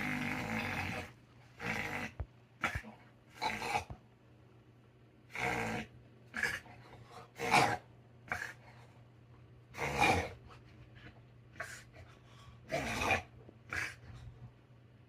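A dog's short, forceful noisy breaths through the nose and throat, about a dozen spasms at irregular intervals of one to two seconds, which the owner suspects is reverse sneezing.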